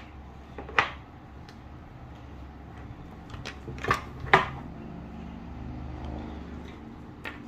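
A few sharp clicks and taps of small plastic toy pieces being handled, over a steady low background hum.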